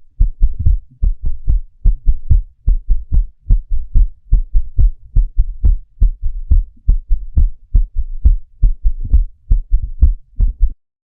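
Recorded heartbeat with a fourth heart sound (S4 gallop): an extra low thud just before each lub-dub, giving the 'Tennessee' cadence. It is the sign of atria contracting forcefully against a stiff or hypertrophic ventricle. The beats stop shortly before the end.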